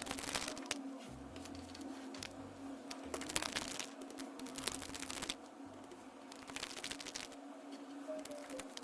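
Scattered clicks and crinkling handling noises, with a few sharper snaps, over a steady low hum.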